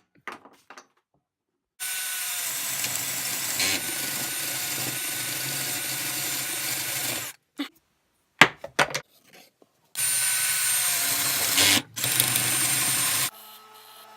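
Electric drill running as it bores holes into a wooden fidget spinner body. Two runs of several seconds each, with short knocks and clicks between them.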